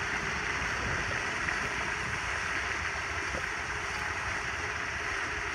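Steady wind noise on the microphone outdoors: an even rushing hiss over a rough, fluttering low rumble, with no distinct splashes.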